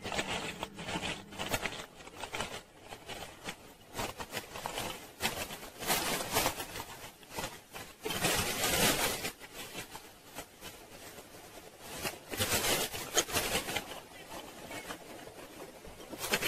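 Dry ingredients being tipped from plastic packets into ceramic bowls: bags rustling and rolled oats pattering into the bowls in irregular bursts, with raisins poured in near the end.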